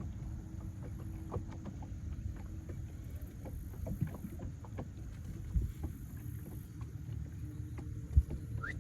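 Sounds aboard a small aluminium jon boat on the water: a steady low rumble with a faint steady hum underneath, and many small scattered knocks and taps, with a sharper knock near the end.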